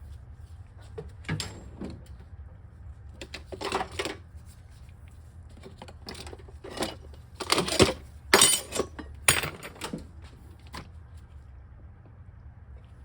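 Intermittent metal clinks and clatter of tools and small hardware being handled, with the loudest run of clatter about two-thirds of the way through.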